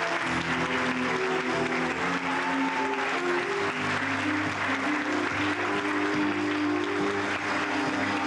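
Audience applauding steadily over instrumental music with long held notes.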